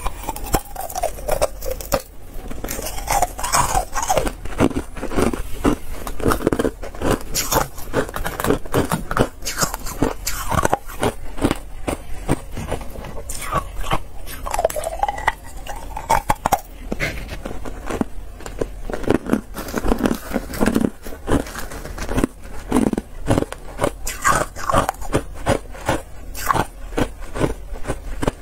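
Carbonated ice being bitten and chewed: a dense, irregular run of crisp crunches that keeps up throughout.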